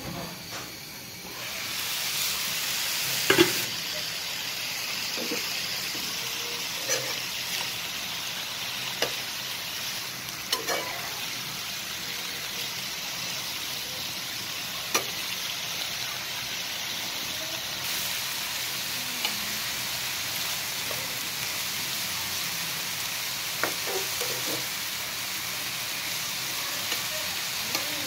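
Leafy greens sizzling in a frying pan: a steady hiss that gets louder about two seconds in as the lid comes off, with scattered sharp clinks of a spatula stirring against the pan.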